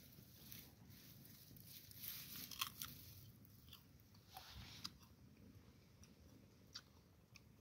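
Near silence, broken by faint crackling and rustling clicks, clustered about two to three seconds in and again near five seconds, with a few single ticks later.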